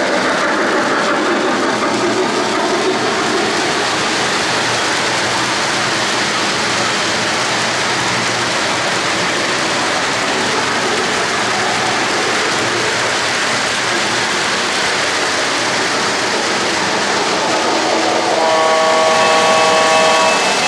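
O-gauge model freight train rolling on three-rail track: a steady rumble and clatter of wheels on the rails. Near the end, a model locomotive's sound system gives one long multi-note chime blast.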